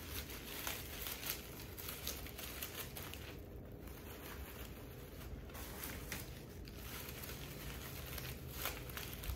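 Irregular crinkling and rustling of wrapping material being handled and arranged by hand, with a few sharper crackles.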